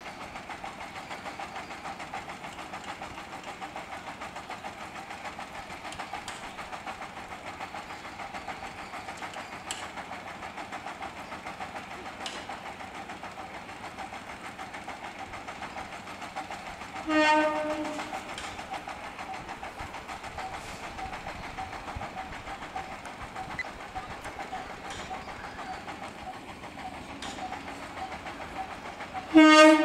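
Electric multiple-unit (EMU) local train approaching with a steady hum and whine, sounding its horn twice: a short blast about 17 seconds in and another, louder blast near the end.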